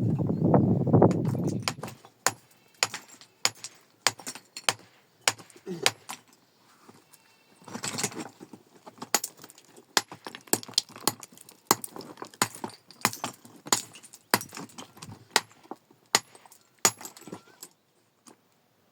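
Stones clicking and knocking against each other as rocks are handled and stacked by hand, a long run of sharp, irregular clacks. A louder, low sound stops about two seconds in.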